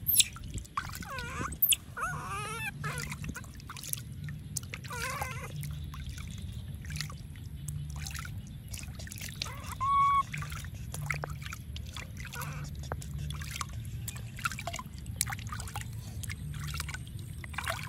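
Water in a plastic basin splashing and dribbling as a hand scoops it over a baby monkey being bathed. A few high, wavering animal squeaks come about a second in and around five seconds, and a short clear call near ten seconds.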